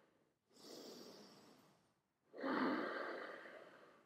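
A yoga instructor breathing audibly while holding a pose: a faint inhale about half a second in, then a louder, longer exhale from about two and a half seconds in that fades away.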